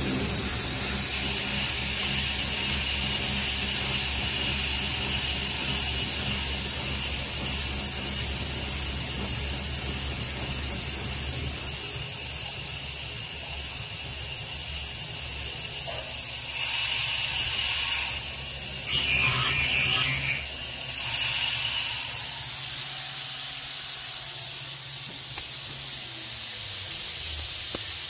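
CNC-converted Grizzly G0704 mill cutting aluminium under a coolant spray, with a steady hiss from the spray over the low hum of its belt-driven, water-cooled 2.2 kW spindle. Sharper, irregular cutting sounds come through for several seconds about two-thirds of the way in, and the low hum fades near the end.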